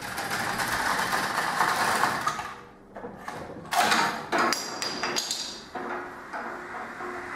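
A homemade chain-reaction machine in motion: a steady rushing noise for about two and a half seconds, then a string of sharp knocks and clicks, some with a short ringing.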